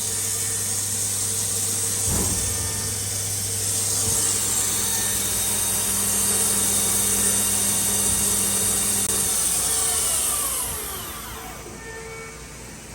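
1998 OKK MCV-660 vertical machining center running under power: a steady mechanical hum with a high hiss, and a single knock about two seconds in. Near the end the whine falls in pitch and the sound drops away as the spindle spins down.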